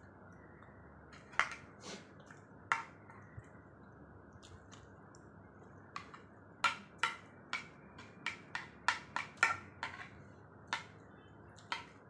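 Spoon clicking and scraping against a plastic bowl as food is scooped: a few sharp taps early, then a quick run of taps in the middle, and one more near the end.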